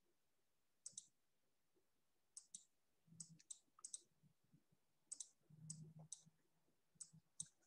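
Near silence broken by faint, irregularly spaced clicks, about a dozen of them, from the presenter's computer desk.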